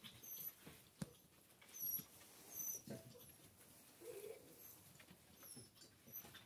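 Faint sounds of Central Asian Shepherd puppies: a couple of soft whines about three and four seconds in, and a light click about a second in. Under them runs a series of short, high chirps that repeat about once a second.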